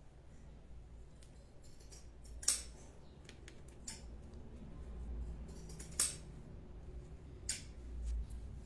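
Quiet handling of strips of cloth being braided into a rope by hand, with three sharp clicks.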